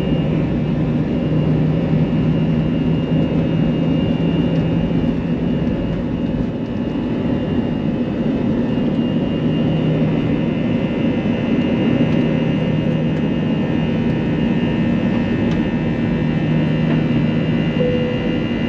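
Airbus A321's CFM56 turbofan engines at takeoff thrust, heard inside the forward cabin as a steady roar with a constant low hum and a faint high whine.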